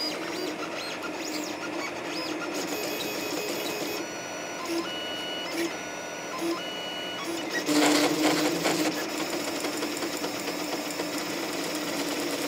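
3D printer's LDO stepper motors whining and buzzing at shifting pitches as the toolhead darts back and forth at high speed, with a louder rattling stretch about eight seconds in. The run is commanded at 600 mm/s, but the Klipper config still caps acceleration at 3,000 mm/s².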